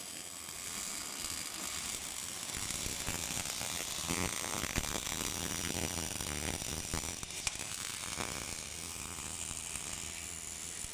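Portable bore-welding machine's welding arc sizzling steadily as the torch works around the bore, with a few sharp clicks.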